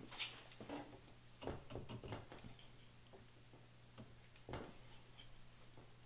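Faint clicks and light scraping of a metal handguard rail being pushed by hand over a rifle barrel toward the barrel nut, a tight fit. The clearest knocks come about a second and a half in and again past four seconds.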